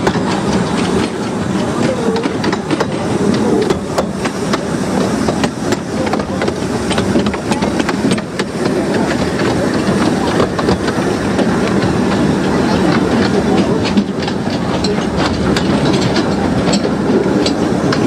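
15-inch gauge railway coach rolling along the track: a steady running noise with many sharp clicks from the wheels passing over rail joints and pointwork.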